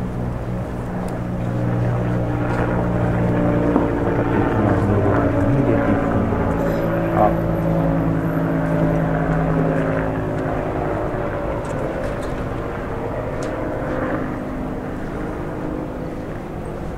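A droning engine passing by, growing louder over the first few seconds and fading away after about ten seconds.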